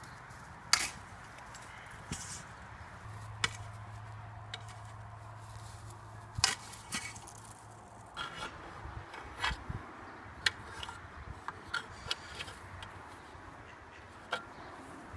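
Irregular sharp clicks and knocks with some scraping, over a low steady hum.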